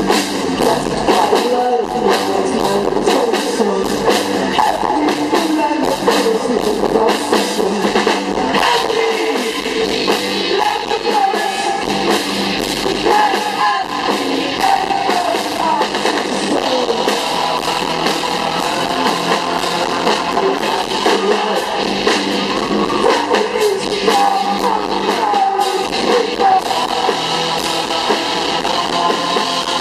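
Live band playing a song with singing, electric guitar and a steady drum beat, recorded from the crowd with very little bass.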